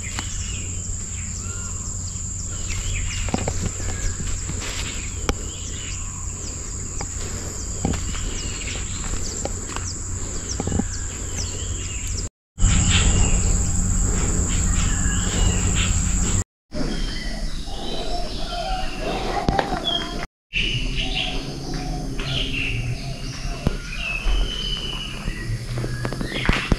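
Rural outdoor ambience: birds chirping and a steady, high-pitched insect drone, over a low rumble. The insect drone stops about two-thirds of the way through, and the sound cuts out briefly three times.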